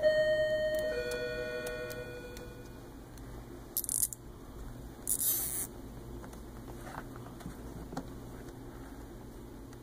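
A small metal object rings twice, about a second apart, each ring fading over a second or two. Then come two short rustling scrapes and a few light clicks.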